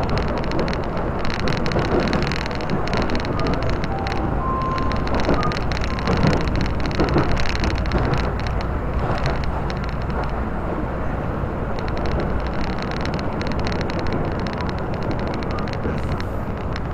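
Commuter electric train running on the Tobu Skytree Line, heard from inside the car: a steady rumble of wheels on rails with rapid small clicks, and a few short faint squeals about four to six seconds in.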